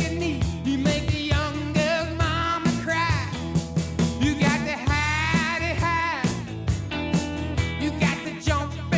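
Background music: a rock song with a sung vocal over a steady drum beat.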